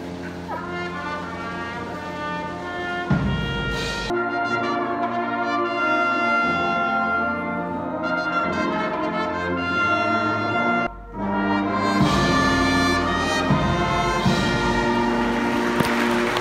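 A school pep band's brass section, with trumpets, trombones and sousaphone, plays a slow tune in long held notes, with a short break about eleven seconds in. Applause starts right at the end.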